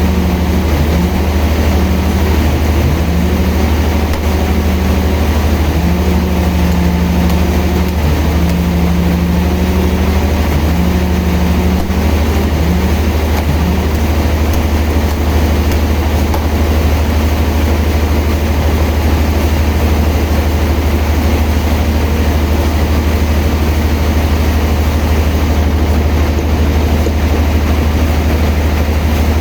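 Sawmill machinery running steadily with a loud low drone and a constant hiss. During the first half a higher tone keeps dipping briefly, then drops out about halfway through.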